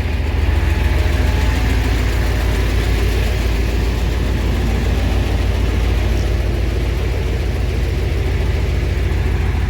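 Heavy truck diesel engine running steadily with a deep, even drone.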